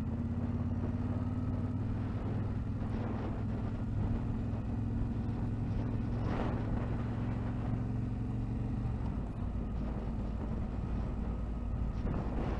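Motorcycle engine running steadily, its low note dropping about nine seconds in. A few brief gusts of wind on the microphone come over it.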